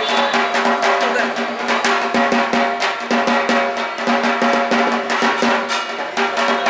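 Music with fast, dense drumming over steady sustained tones.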